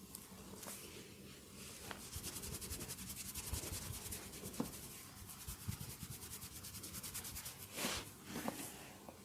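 Hands rubbing quickly and rhythmically during a massage, a fast run of short scratchy strokes with a louder rub near the end.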